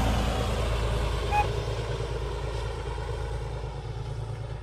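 Low rumble of a diesel train running past, slowly fading as it moves away.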